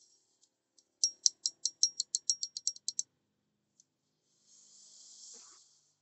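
A quick run of about a dozen sharp, light metallic clicks, roughly six a second, as a small metal pin and sleeve from a horn switch part are worked by hand. A brief soft hiss follows near the end.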